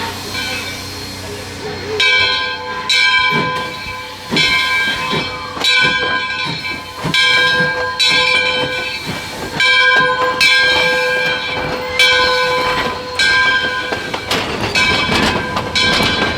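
Steam locomotive #18's bell ringing over and over, about once a second, each stroke a clear ringing tone that fades. Steam hiss fills the first two seconds before the ringing starts.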